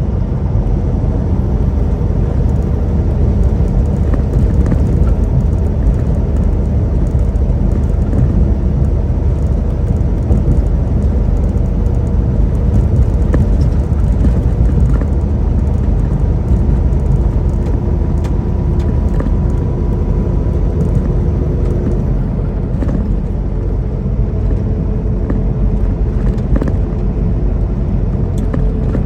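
Steady engine drone and road noise inside a semi-truck's cab at highway speed, with a faint steady whine that stops about three-quarters of the way through.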